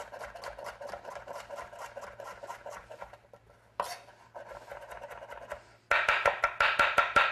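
Kitchen knife slicing vegetables on a cutting board, the blade knocking the board in a quick, even rhythm. A short pause about halfway, then much louder, faster chopping in the last second or so.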